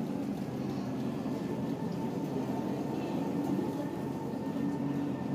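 Busy city street ambience: a steady rumble of road traffic with a faint steady tone above it.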